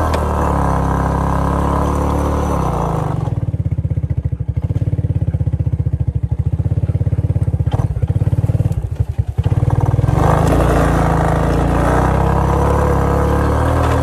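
Four-wheeler (ATV) engine running under load while towing a chained birch log: a steady low throb. The higher rattle eases off for several seconds in the middle, then comes back.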